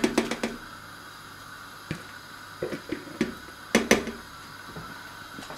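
Sauerkraut being tipped and scraped from a plastic bowl into a stainless steel pot of water: a quick run of small knocks and clatters at the start, a few more about two to three seconds in, and one sharper knock of bowl against pot about four seconds in.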